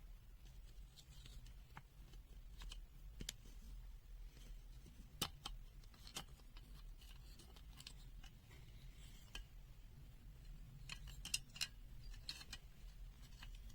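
Faint, scattered clicks and light taps of small plastic parts being handled while a handheld digital multimeter is taken apart, with a sharper click about five seconds in and a quick run of clicks near eleven seconds.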